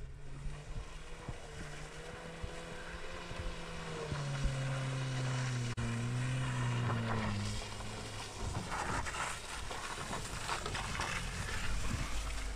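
A Volkswagen Polo driving through a muddy, waterlogged dirt track toward the listener. Its engine runs steadily at first and gets louder under throttle from about four seconds in. In the second half the engine is covered by the splashing and sloshing of the tyres through puddles and mud.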